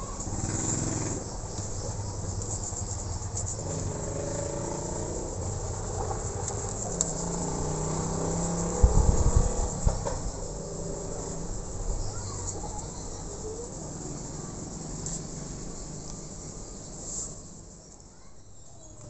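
Steady high chirring of insects, with a motor vehicle engine passing by through the middle and a brief low bump about nine seconds in, the loudest moment.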